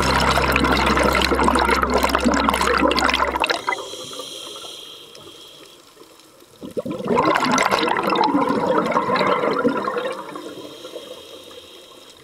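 Exhaled bubbles from a scuba diver's regulator gurgling and rushing underwater, heard from inside the water. Two long exhalations, the first fading about three and a half seconds in and the second starting about seven seconds in, with a quieter gap between them for the in-breath.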